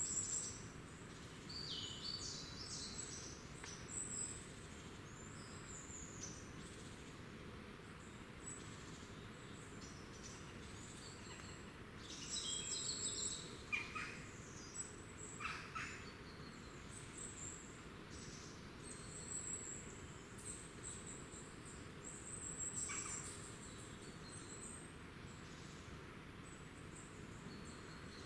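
Small woodland songbirds calling: a scatter of thin, high-pitched notes and short trills, busiest at the start and around the middle. Several quick calls sweep downward in pitch, over a steady low background hiss.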